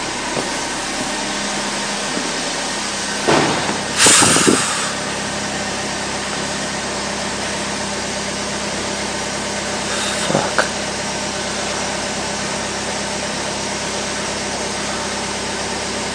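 Suzuki Swift's engine running steadily, heard from inside the cabin as an even hum. A few brief louder rushes of noise come about three and four seconds in and again around ten seconds.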